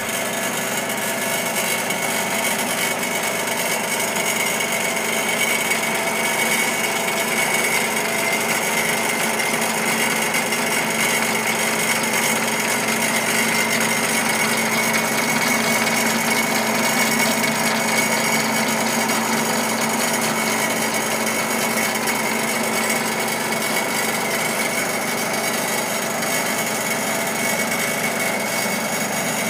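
Lathe running with its headstock cover off, spindle shafts and meshing gears turning. It makes a steady mechanical whirr with a constant high whine.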